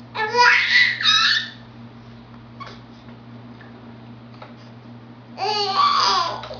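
Baby making high-pitched squeaky squeals: two short squeals near the start and one longer one near the end.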